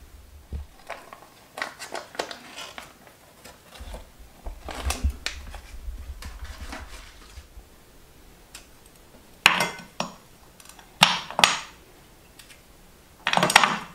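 A hardened slab of homemade ginger-jaggery candy being lifted off butter paper and broken apart by hand: light crackling and rustling, then three louder sharp snaps and clacks as pieces are broken off and set on a plate.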